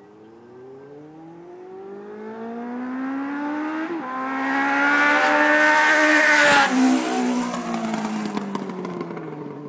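Suzuki GSX-R 750 sport bike's inline-four engine accelerating hard toward and past, its revs climbing as it gets louder. It is loudest about six and a half seconds in, where the pitch drops sharply as it passes, then fades with falling pitch as it rides away.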